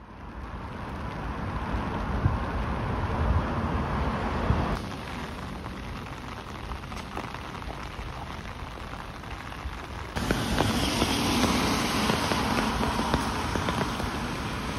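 Heavy rain falling on a street: a steady hiss with a low rumble underneath. Its level steps down about five seconds in and back up about ten seconds in.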